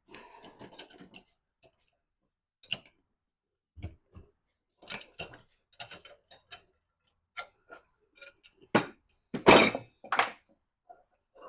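Metal parts and tools clinking and knocking as they are handled: scattered light clicks, then a louder clatter about nine seconds in.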